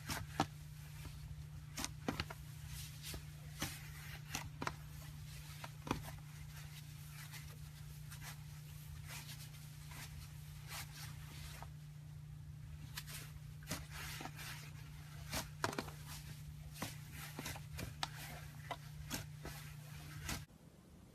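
Slime being squeezed and poked by hand, giving irregular small pops and clicks over a steady low hum that cuts off shortly before the end.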